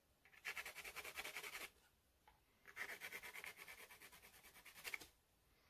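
Soft 8B graphite watercolour pencil hatching on textured cotton watercolour paper: two runs of quick back-and-forth strokes with a faint scratchy rub, the first lasting about a second and the second, longer, starting just under three seconds in.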